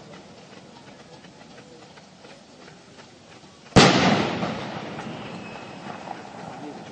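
A pyrotechnic charge goes off once, about four seconds in: a single sharp, loud bang whose boom echoes and dies away over a second or two. Faint scattered pops come before it.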